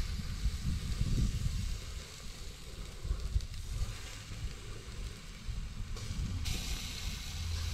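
Rump steak sizzling on the wire rack of a charcoal grill: a steady hiss over a low, uneven rumble. The sizzle grows louder about six and a half seconds in, as the steak is laid back onto the hot grate with tongs.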